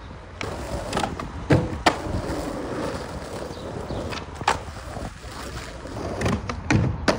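Skateboard wheels rolling on rough asphalt, with several sharp wooden clacks of boards popping and landing flatground tricks.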